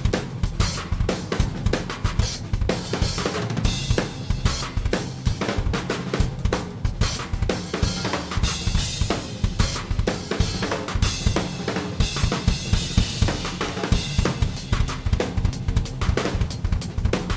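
Live rock band playing without vocals: a drum kit played fast and hard, with bass drum, snare and cymbals, over a steady low sustained note.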